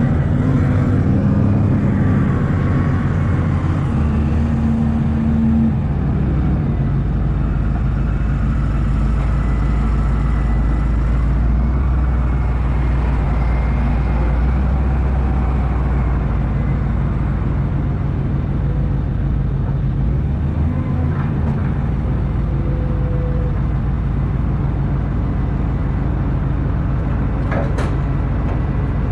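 A truck's engine running steadily with a low drone. Its note changes about six seconds in and again around twenty seconds in.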